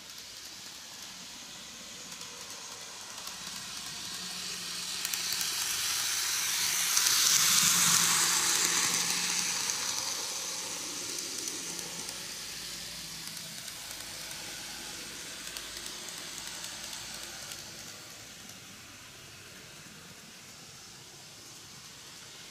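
N gauge model of the Meitetsu EL120 electric locomotive (Greenmax) running on the track: the whir of its motor and wheels on the rails, with a faint hum. The noise swells to its loudest as the model passes close about seven to eight seconds in, then fades as it runs on round the curve.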